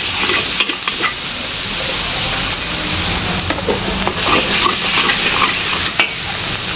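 Oil sizzling steadily in a wok over a gas burner while a metal spatula stirs and scrapes the pan, with scattered clinks of spatula on metal and a sharper one about six seconds in.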